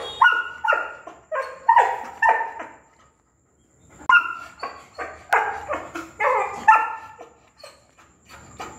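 Female yellow Labrador retriever barking: a run of about six quick barks, a pause of over a second, then a second run of about seven barks.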